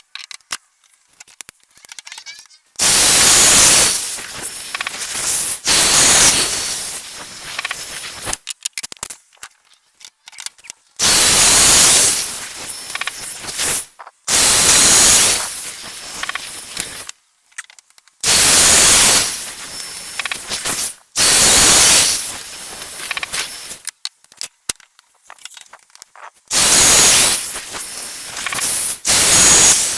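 Domino joiner running in repeated bursts of two to three seconds each, about seven in all, as it plunges mortises for 8 mm dominoes. Short clicks and handling noise fall between the cuts.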